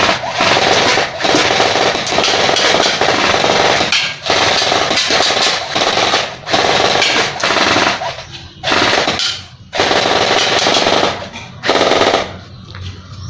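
An electric airsoft rifle, an M416-style D'cobra spring gun converted to AEG, fires on full auto in a string of bursts of one to two seconds each, with the motor and gearbox cycling rapidly. The firing stops shortly before the end.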